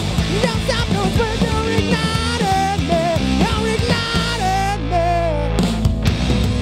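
Rock band playing live: electric guitar, bass and drum kit, with a lead line of sliding, bent notes over the groove. Near the end the lead stops and the upper part thins out, leaving drums and bass.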